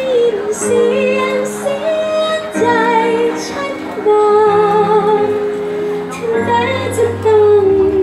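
A woman singing into a handheld microphone over instrumental accompaniment, holding long notes with vibrato.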